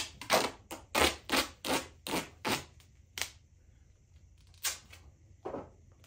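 Duct tape being ripped off the roll in short jerks: a quick series of about eight harsh rasping rips, roughly three a second, then three more single rips spaced further apart.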